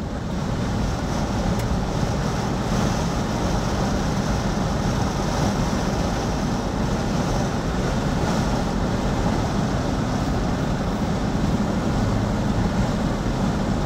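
Steady road noise from a car being driven at speed: a continuous low rumble of tyres and engine with a rushing hiss above it.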